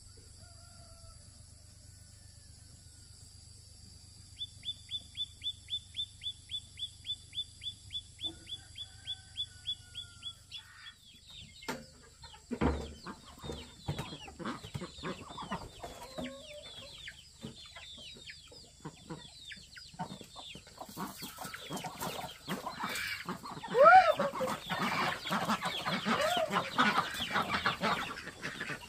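Chickens clucking, sparse at first and growing busier and louder in the second half, with a few louder arched calls near the end. Before them, a rapid, even series of high chirps runs at about four a second for some six seconds.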